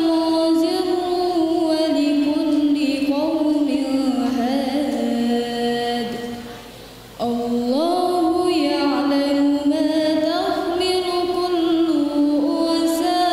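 A girl's voice reciting the Quran in the melodic tilawah style into a microphone: long held notes with ornamented glides. It breaks off for a breath about six seconds in and resumes about a second later.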